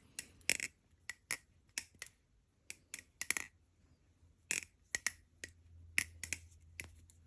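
A balisong (butterfly knife) being flipped: its metal handles clack and click irregularly, about twenty sharp clicks in quick, uneven clusters. The knife's pivots are loose, which the owner says makes it sound terrible.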